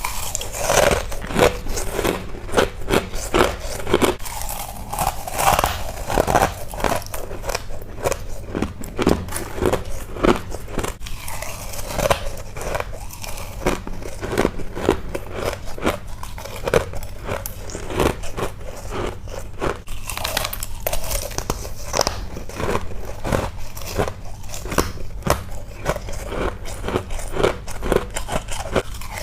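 Freezer frost and ice being bitten and crunched, a rapid, irregular run of crisp crackling crunches with short pauses between bites.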